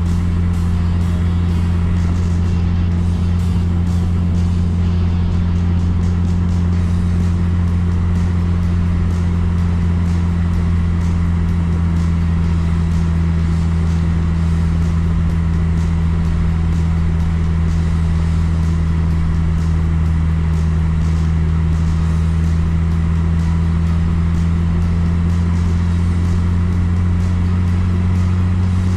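Steady low drone of a car driving at constant speed, heard from inside the car: engine and road noise with no change in pitch.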